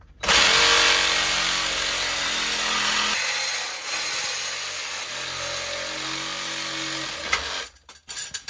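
DeWalt reciprocating saw cutting through a rusty steel exhaust pipe. The motor runs steadily under load with the blade rasping through the metal, its pitch shifts about three seconds in, and it cuts off near the end.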